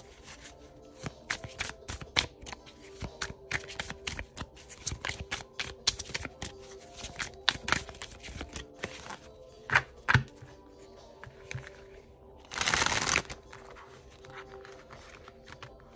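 A deck of oracle cards being hand-shuffled: a steady run of light card slaps and clicks, with two sharper taps and, near the end, a louder rush of card noise lasting under a second. Soft background music with held tones plays underneath.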